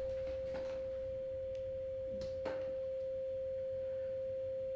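Steady 528 Hz sine tone, one pure unwavering pitch, played through a small Bluetooth speaker.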